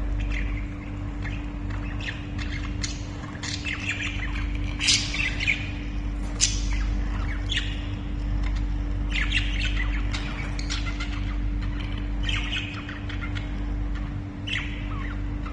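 Pet budgerigars chattering: quick warbling chirps and sharp squawks in short bursts every second or so, with a couple of louder calls near the middle, over a steady low hum.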